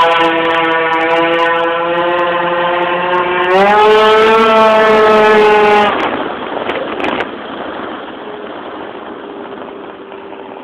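Tuned Yamaha Jog RR 50cc two-stroke scooter engine with a Hebo kit, held at high revs with a high-pitched note that rises further about three and a half seconds in. About six seconds in the engine note drops away sharply, leaving a faint hum and noise.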